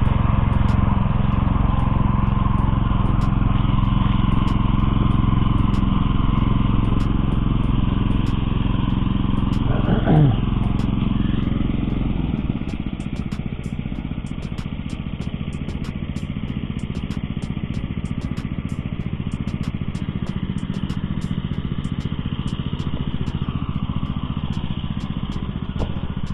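Lifan 168F single-cylinder petrol engine on an Oka walk-behind tractor running steadily under load as it pulls a trailer cart, growing quieter about halfway through as the tractor drives off. A brief call cuts in about ten seconds in.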